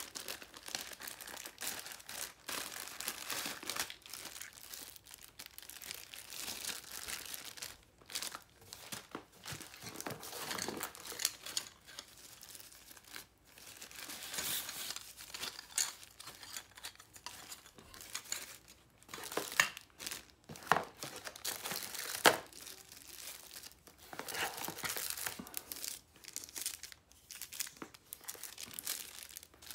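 Clear plastic packaging bags crinkling and rustling in irregular bursts as accessories are handled and unwrapped. About two-thirds of the way through, three sharp knocks stand out as the loudest sounds.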